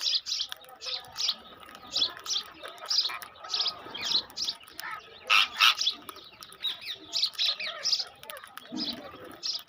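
Birds chirping: a rapid run of short, high calls, several a second, with the loudest pair a little past halfway.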